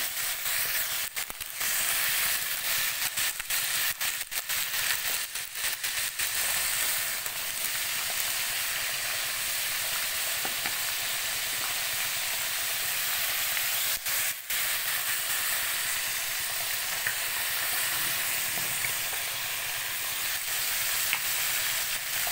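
Sliced button mushrooms and vegetables sizzling in a hot wok with a steady frying hiss, stirred and turned with a metal spatula.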